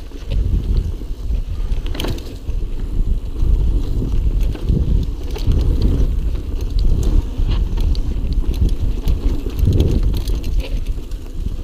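Wind rumbling on the action camera's microphone as a mountain bike rolls fast down a dirt forest trail, with tyre noise and frequent sharp clicks and rattles from the bike over bumps.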